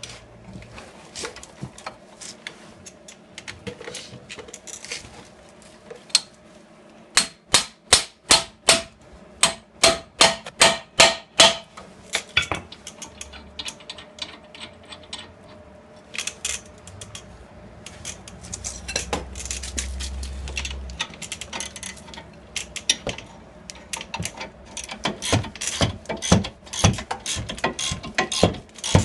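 Metal-on-metal hand-tool work on car suspension: a run of about a dozen sharp strikes in quick succession about a third of the way in, with lighter metallic clicks and taps before and after, growing busier near the end. The sounds come from forcing the worn lower ball joint out of the steering knuckle.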